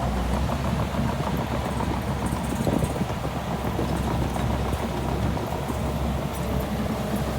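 Crawler bulldozer's diesel engine running with a steady low drone, over a dense irregular clatter.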